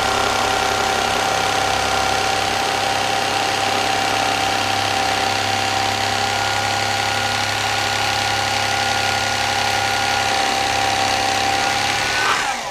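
Electric fillet knife running steadily as its blades cut a panfish fillet away from the skin. Its whine lifts briefly in pitch and then cuts off near the end.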